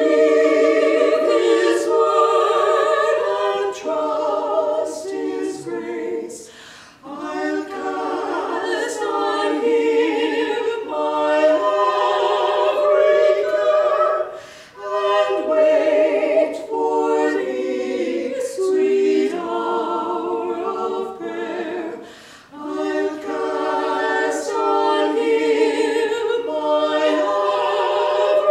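Four-woman vocal ensemble singing an early American song a cappella in harmony, in long phrases broken by short breaks about every seven to eight seconds.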